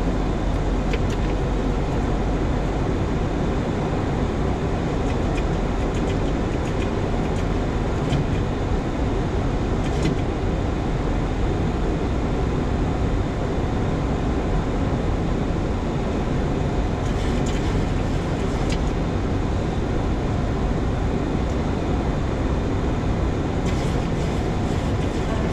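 Steady flight-deck noise of a Boeing 737-800 on approach: a constant rush of airflow and engine noise, with a few faint clicks.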